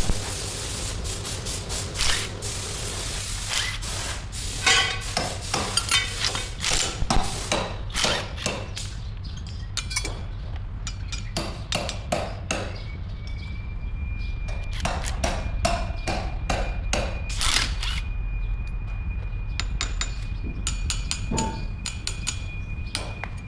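Irregular metal clanks and hammer blows on steel over a steady low hum. A thin, steady high whine sets in about halfway through.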